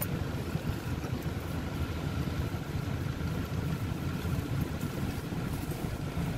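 Steady low rumble of a car's engine idling, heard from inside the cabin, with a faint steady whine above it.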